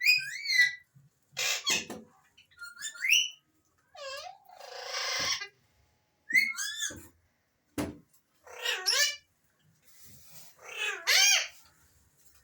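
Alexandrine parakeet giving a series of short warbling whistles and harsh squawks, about seven separate calls with short pauses between them.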